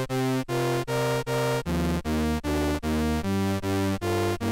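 Curious Sound Objects Bitty pocket synthesizer playing its harmonic patch: a sequence of short repeated synth notes, about four a second, stepping to a new pitch every second and a half or so.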